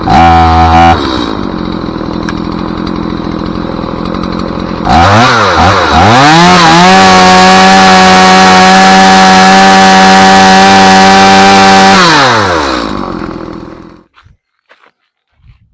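Two-stroke chainsaw running. It gives a short rev at the start and settles to idle, then revs twice about five seconds in. It holds a high, steady full-throttle pitch for about five seconds, then winds down and dies away near the end.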